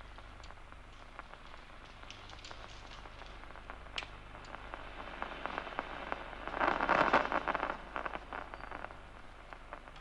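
Amplified nerve impulses from the locust's DCMD neuron played through an audio monitor: scattered clicks crackling like rain, thickening into a dense, loud burst of spikes about seven seconds in as the 10-degree target spot sweeps past the locust's eye. A steady low hum runs underneath.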